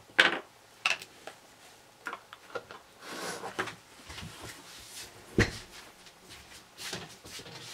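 Craft supplies being handled on a wooden desk: a string of light knocks and clicks with some rustling, the sharpest knock about five seconds in.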